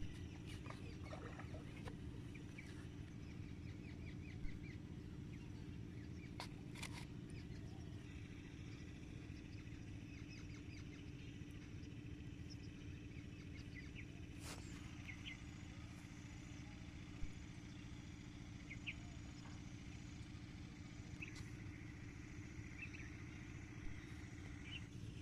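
Faint, steady low motor hum, with short bird chirps now and then and a few sharp clicks.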